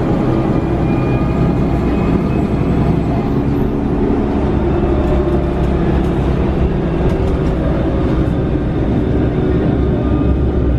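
Mercedes-Benz Citaro G articulated bus with a natural-gas (CNG) engine and ZF automatic gearbox, heard from inside the cabin while under way: a steady low rumble of engine and road noise.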